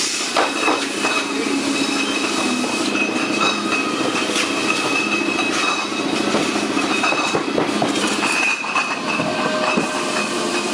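Beer bottling machine running: continuous rattling and clinking of glass bottles moving through the filler, with hissing and a thin steady high whine.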